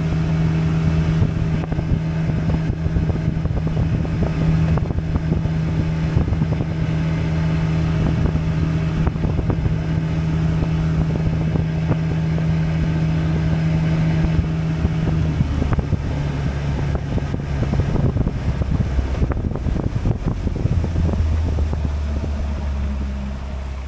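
Boat's outboard motor running steadily underway, with wind buffeting the microphone. About two-thirds of the way through the engine note drops as it is throttled back, and drops again lower near the end.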